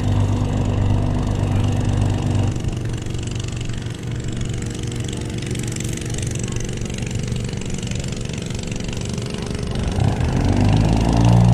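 An engine idling with a steady low hum, strong at first, easing off a couple of seconds in and building up again near the end.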